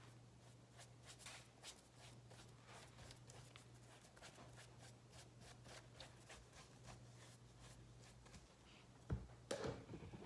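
Faint, repeated scratchy strokes of a flat paintbrush working paint into the mesh upper of a football cleat, a few strokes a second. A couple of louder knocks come near the end.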